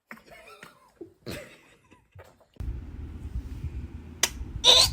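A baby's soft little vocal sounds, then near the end a short, loud baby sneeze over a low background rumble.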